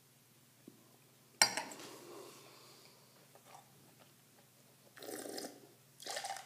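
Red wine being slurped, with air drawn sharply through the mouthful about a second and a half in, trailing off over a second. It is then spat into a metal spit cup in two short gushes near the end.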